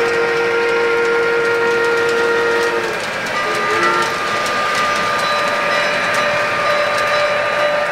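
O-gauge model train's sound-system whistle: a long chord of several notes at once that cuts off about three seconds in, then a short toot, over the steady rolling rumble of the passenger train running on three-rail track.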